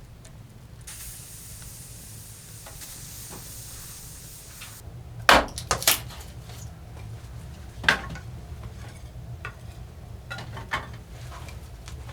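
A high hiss lasting about four seconds, followed by a few sharp knocks and clatters like camp cookware being handled, the loudest about five seconds in, with a steady low rumble underneath.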